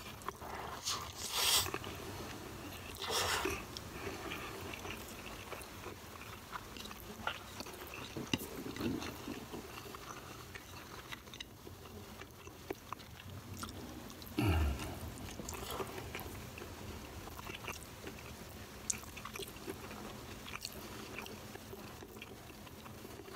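A person chewing mouthfuls of rice and vegetables eaten by hand, with small wet mouth clicks and smacks and a few louder bites.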